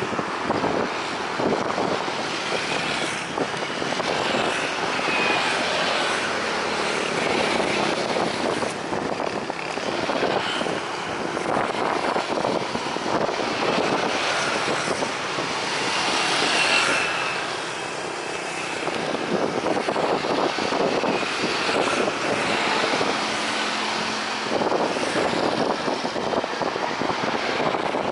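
Jet engines of a twin-jet military transport climbing away after take-off: a steady, loud, rough rumble that swells a little past the middle and then eases.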